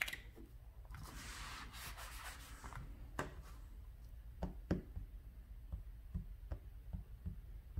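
Soft rubbing and sliding of a hand and phone over paper for a couple of seconds, then a few faint fingertip taps on a smartphone's touchscreen as numbers are entered into its calculator.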